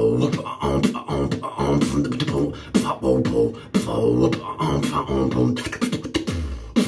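Beatboxing in the style of electronic dance music: sharp mouth-made drum hits over a pitched, wavering vocal bass-synth line, kept in a steady beat.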